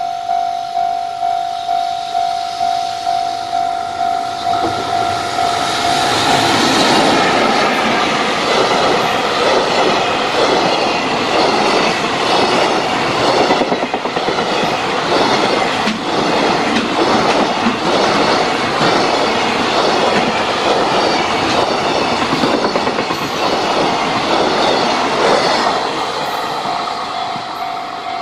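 A Japanese level-crossing alarm rings in steady repeated dings, about two a second. About five seconds in, a long JR Freight container train passes close by on the near track. Its wheels clatter rhythmically over the rail joints and drown out the bell, easing off near the end.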